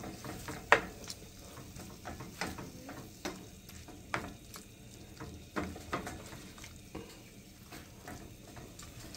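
A wooden spoon stirring chicken feet and vegetables in a frying pan, with scattered scrapes and knocks of the spoon against the pan over a faint sizzle. The sharpest knock comes about three-quarters of a second in.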